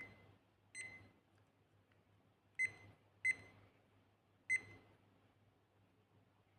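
Digital kitchen timer giving five short high-pitched beeps at uneven intervals, each with a click at its onset: the key beeps of its buttons being pressed.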